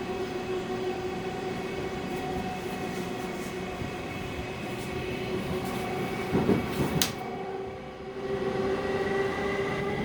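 E217-series electric commuter train running, with a steady motor whine over wheel and rail rumble. There are a few knocks and a sharp click about six to seven seconds in, then the whine slowly rises in pitch near the end.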